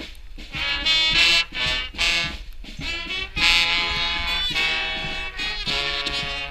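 Street brass band playing a tune: saxophones and brass horns sounding held notes together in short phrases.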